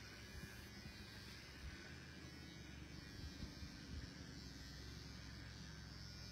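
Electric hair clippers running with a faint, steady buzz as they shave a woman's head.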